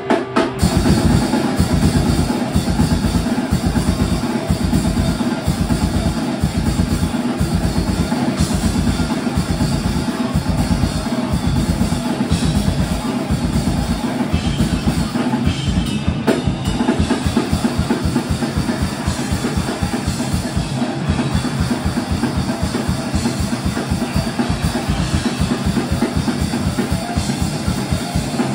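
Rock band playing live: a loud drum kit with steady, rapid bass-drum beats and cymbals under electric guitars.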